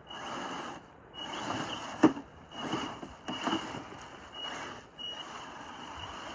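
Brushless motor and drivetrain of a Traxxas TRX4 Sport RC crawler whining in about six short throttle bursts as it works over rocks, with a sharp knock about two seconds in. The repeated bursts show the truck struggling to get up the obstacle.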